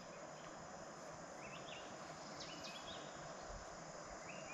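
Faint, steady insect chorus, with a few short rising chirps now and then.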